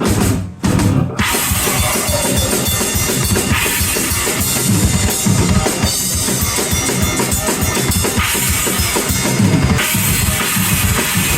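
Heavy metal band music driven by a drum kit, with fast, even bass drum strokes under dense full-band sound; it drops out briefly about half a second in, then carries on.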